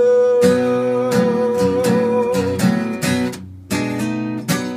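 Acoustic guitar strummed through the closing bars of a song while a man's voice holds a long final sung note for the first half. The strumming breaks off briefly and then ends with two last strums.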